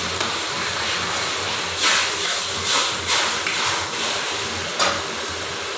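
Steady hiss of food frying in a pan on a gas stove, with a few short, louder bursts as the pan is worked.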